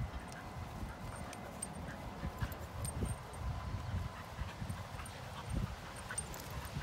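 A Husky–Pomeranian cross puppy and a Staffordshire bull terrier–Rhodesian Ridgeback cross play-fighting, with low, fairly quiet grunts and growls and irregular scuffling.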